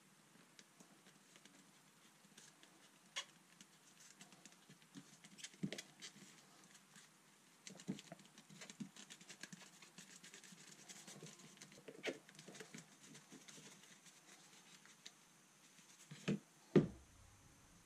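Faint handling sounds of self-amalgamating rubber tape being worked and rolled around a small cardboard puck: scattered soft scratches and ticks, with two louder short knocks close together near the end.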